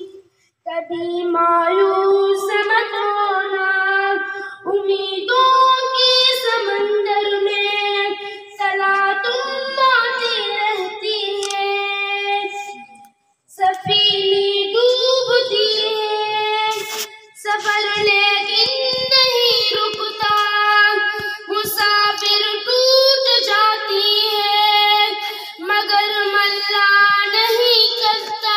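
A boy's voice singing solo and unaccompanied: a slow melody with long held notes, broken by a short pause about halfway through.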